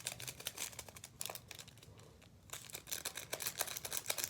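Crinkling, crackling clicks of glitter from a small pack being added to slime by hand, sparse at first and thicker in the second half.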